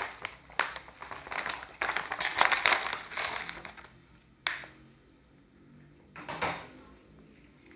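Plastic Cheetos snack bag crinkling as it is handled, a crackling run of rustles for about four seconds, then a sharp tick and one more short crinkle as the bag is laid down on the plate.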